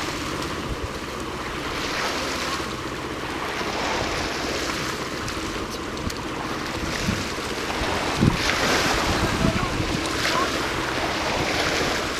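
Surf washing onto a beach in slow swells, with wind buffeting the microphone. A few sharp thumps come about eight seconds in.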